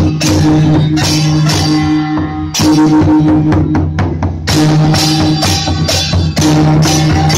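Taiwanese temple percussion ensemble playing: a large red barrel drum, a hanging gong and small hand cymbals struck together in a dense, steady rhythm, with a ringing held pitch that drops out and returns a few times.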